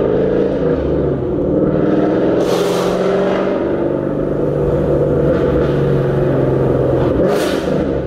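Ford Mustang V8 exhaust cruising at city speed, heard from inside a car: a steady drone whose pitch steps a few times as the revs change. Two short hissing rushes come about two and a half seconds in and again near the end.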